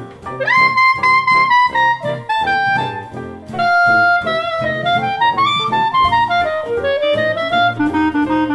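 Background jazz music: a woodwind melody over a steady pulsing accompaniment. The tune opens with an upward slide into a held note, sustains a long note midway, and climbs step by step near the end.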